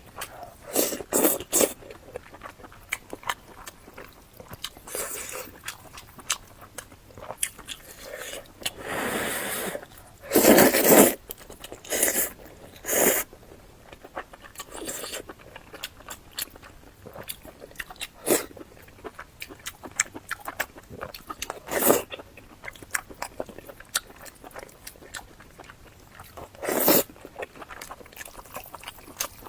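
Close-miked eating: chewing and crunching bites of braised pork, soupy rice and fried egg, a run of small mouth clicks broken by a few louder noisy bursts, the loudest about a third of the way in and another near the end.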